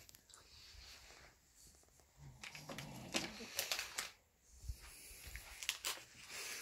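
Faint rustling, crinkling and light clicks of small objects being handled. A sleeping man gives a soft snore about two seconds in.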